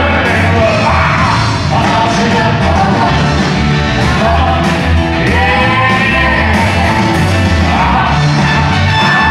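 Live rock and roll band with drums playing loudly while a male singer sings into a handheld microphone.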